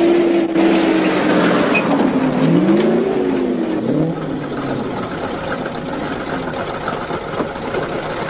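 Soviet GAZ truck engine running as the truck pulls up, its pitch dipping and rising about two to three seconds in, then settling to a quieter idle with a light, regular ticking.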